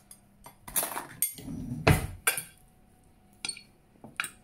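Metal spoon clinking and knocking against a glass baking dish while stirring cooked pasta and sausage slices: a few irregular knocks, the loudest about two seconds in.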